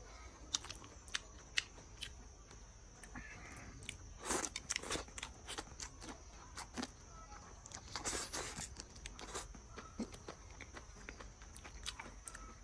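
Close-miked chewing and smacking of a person eating, with several sharp clicks in the first couple of seconds and louder wet bursts around four and eight seconds in.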